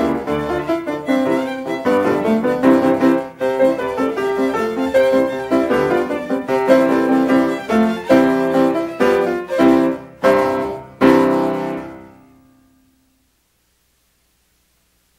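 Piano music in silent-film style, closing on a run of separate struck chords; the last one, about eleven seconds in, rings on and dies away to nothing.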